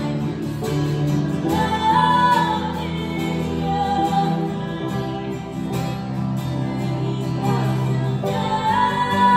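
Live band music: a woman singing, holding long notes twice, backed by acoustic guitar.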